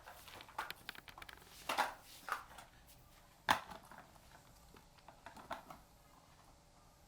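Scattered light clicks and knocks of small objects being handled, irregular, with the sharpest knock about three and a half seconds in.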